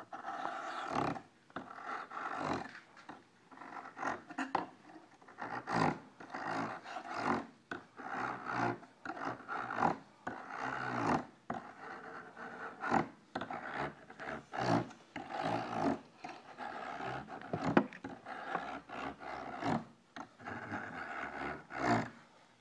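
Steel hook scraper blade being hand-filed across a bench-mounted file in repeated back-and-forth strokes, about one a second, with a chattering buzz on some strokes. The edge is being beveled before it is rehooked, and the chatter comes from too much pressure or a poor spot on the file.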